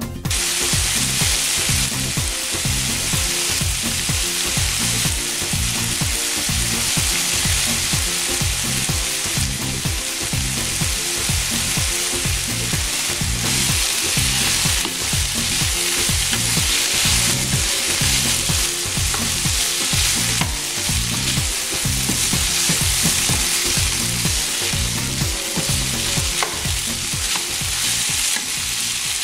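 Spice-marinated chicken pieces sizzling as they fry in a hot pan without oil, stirred with a spatula that scrapes and pushes them around the pan.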